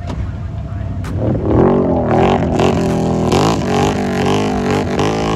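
Can-Am ATV engine revving hard while churning through a muddy pond, its revs surging up and down several times a second as the wheels spin in the water, with water spray hissing. It gets louder about a second in.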